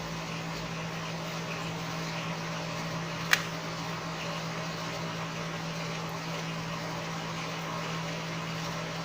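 Steady low background hum with one sharp click about three seconds in, from tweezers prying up a flex connector inside a Redmi Note 4 smartphone.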